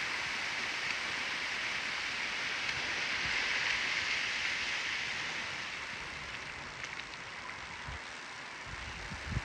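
Rainwater runoff rushing over bare rock in a seasonal arroyo: a steady hiss that eases a little after about five seconds, with a few soft low thumps near the end.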